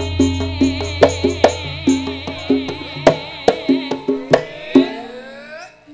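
Javanese gamelan playing: struck bronze metallophone and kettle-gong notes over the low hum of a large gong that fades out, punctuated by sharp drum strokes. The playing comes to a close and dies away near the end.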